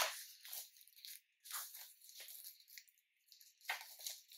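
Plastic shrink wrap being torn and peeled off a Blu-ray case: a series of irregular crinkly tearing rips.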